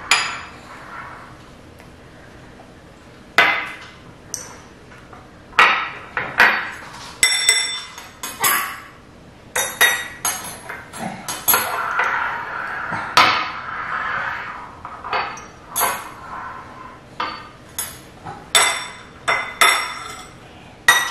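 Metal forks tapping and clinking against small glass tea glasses and glass bowls: many sharp, irregular clinks with a short ring, starting about three seconds in.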